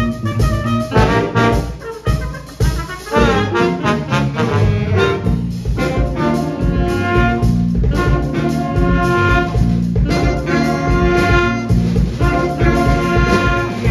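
Big band of saxophones, trumpets and trombones playing a jazz tune live, the horns in full ensemble over a drum kit keeping a steady beat.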